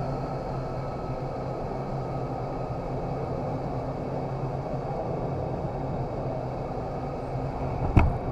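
Indoor vertical wind tunnel running: a steady rush of airflow over a low fan hum. A single sharp knock near the end.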